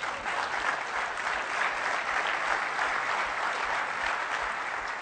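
Large audience applauding, thinning out near the end.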